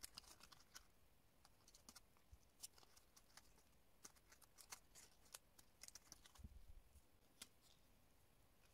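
Faint crinkling and small clicks of a paper bow made of glitter cardstock and printed paper, handled and pressed into shape by fingers; scattered light clicks.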